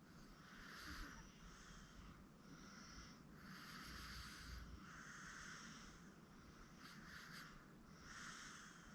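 Sleeping 8-month-old baby breathing audibly, faint hissy breaths in and out about once a second.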